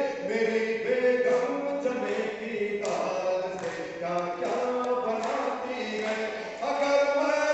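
A man singing verse into a microphone in a chant-like melody, holding long notes.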